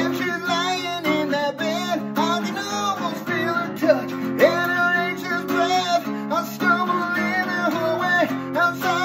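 Strummed acoustic guitar playing chords, with a man singing over it.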